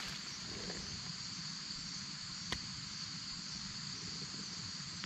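Steady high-pitched drone of insects, with one sharp click about two and a half seconds in.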